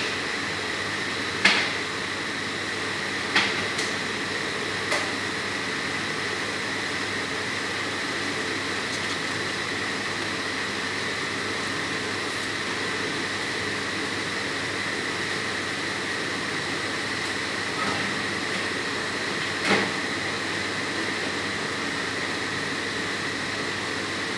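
A steady whirring hum from a running kitchen appliance. A few sharp knocks of containers and the fridge door break it as things are put back into the fridge, the loudest about a second and a half in.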